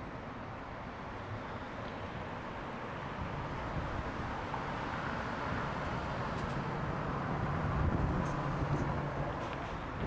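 Steady outdoor traffic rumble, with a vehicle engine's low hum growing louder around two-thirds of the way in and easing off near the end.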